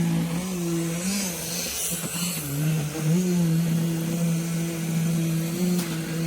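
Diesel engine of an earthmoving machine running steadily. Its pitch sags about two and a half seconds in and picks back up, as when the engine takes a load. A rush of hiss comes over it in the first couple of seconds.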